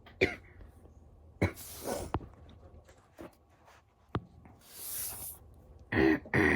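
A woman coughing: a few short coughs and breaths, a breathy hiss about five seconds in, then two hard coughs near the end.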